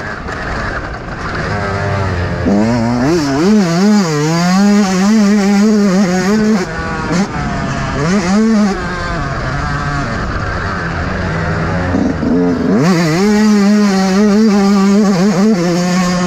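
Yamaha YZ125 two-stroke single-cylinder engine running under a riding motocross bike, revving up and falling back again and again as the throttle is worked. The engine fades for a few seconds around the middle, then comes back at steady high revs about three-quarters through.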